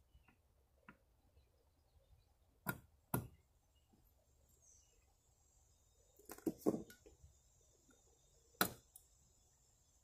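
Sparse sharp clicks and knocks of hand tools and parts being handled at a camper's outside electrical box: two close together about three seconds in, a small cluster between six and seven seconds, and one more near nine seconds.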